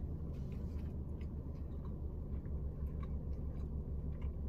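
A person chewing a mouthful of shawarma wrap, with faint scattered wet mouth clicks, over a steady low hum in a car cabin.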